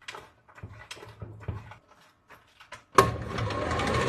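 A few faint clicks and knocks, then about three seconds in an electric tricycle's rear drive starts up with the wheels off the ground, running with a rising whine over a rattling, whirring noise. This rattle is heard from both rear wheels at every speed, and its cause is still being looked for.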